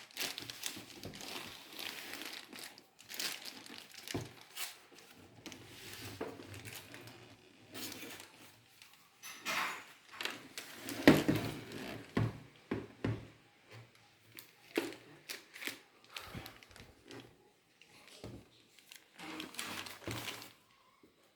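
Packaging being handled while unboxing an instant water heater: irregular crinkling and rustling with scattered knocks, the loudest about halfway through.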